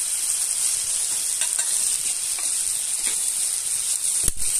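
Chicken curry sizzling in an iron kadai, with a spoonful of ghee just added. There is a steady high hiss, a few faint clicks, and one dull thump near the end.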